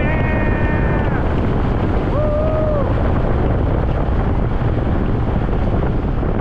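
Strong wind rushing over the microphone of a camera mounted on a hang glider's wing in flight. Two short held tones stand out over it, one in the first second and another about two seconds in.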